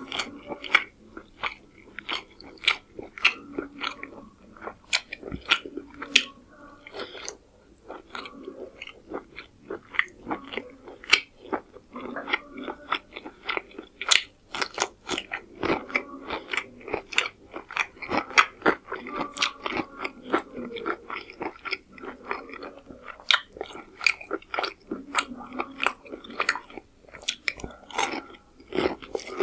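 Close-miked chewing of pulao rice and chicken curry, a steady run of wet mouth smacks and clicks. There is a crunchy bite of raw cucumber about halfway through.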